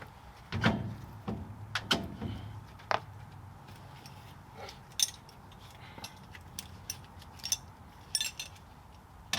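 Scattered metallic clicks and clinks of hand tools and parts being handled during rear axle work, with a couple of duller knocks about a second and two seconds in.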